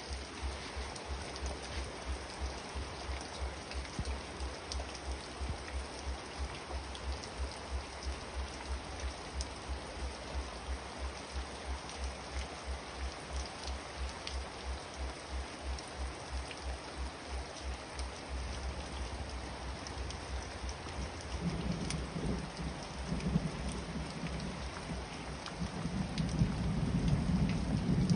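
Steady heavy rain falling, with scattered drop hits and a low throb pulsing about two to three times a second underneath. Thunder starts rumbling about three-quarters of the way in and grows louder toward the end.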